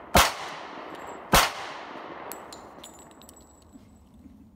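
Two pistol shots about a second apart, each sharp crack ringing out and echoing as it fades.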